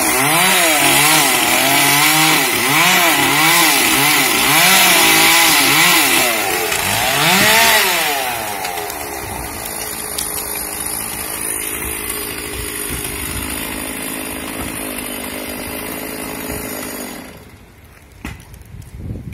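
Chainsaw cutting a tree branch, its engine revving up and down about once a second for the first eight seconds. It then runs more evenly and quieter, and stops about seventeen seconds in.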